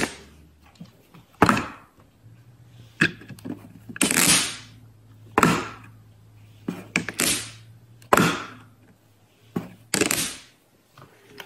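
Silicone suction lick mat slapped onto and peeled off a stainless-steel dishwasher front, making a sharp smack or pop each time; about seven of them, a second or two apart.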